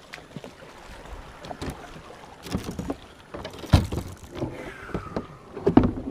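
Irregular knocks and clunks of gear and paddle against a fishing kayak's hull, over a faint wash of water and wind; the loudest knocks come a little before four seconds in and near the end. A short falling tone sounds a little before five seconds.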